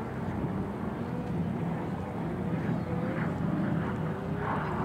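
Douglas C-47 Skytrain's twin radial engines droning steadily as the plane flies past.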